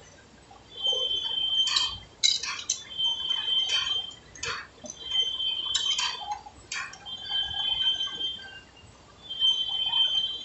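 Heavy lathe cutting a large steel roll: a high metallic ringing from the tool comes and goes in about five bursts, roughly every two seconds, with sharp metal clinks and knocks in between.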